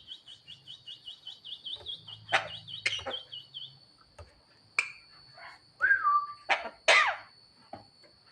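Javan myna calling: a run of quick, even chirps, about six a second, for the first few seconds, then scattered harsh squawks, one sliding down in pitch, and a loud harsh call near the end.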